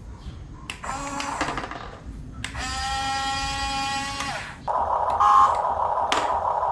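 Small electric motor of a remote-control model crane truck whining in short runs. One steady whine lasts about two seconds and drops in pitch as it stops. About two thirds of the way in, a different pulsing sound starts.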